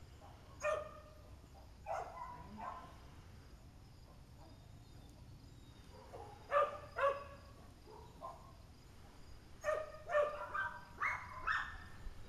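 A dog barking in short, sharp barks: a few spaced barks, then a pair, then a quicker run of barks near the end.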